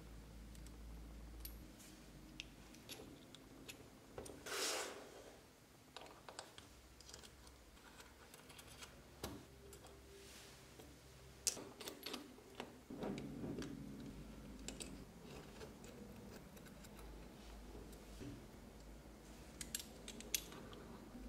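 Small metal model-engine parts clicking and clinking as they are handled and fitted together by hand, in scattered light taps, with a short louder rustle about four and a half seconds in.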